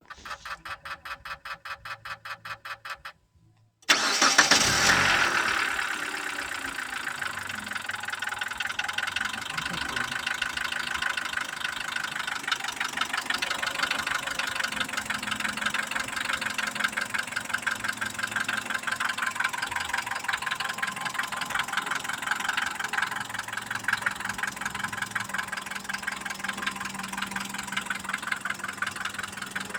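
Mitsubishi 4G94 2.0-litre inline-four engine starting about four seconds in, after a short run of rapid clicks, flaring up and then settling to idle. Through the idle there is a steady, regular knock, the fault the owner is asking about and cannot yet explain.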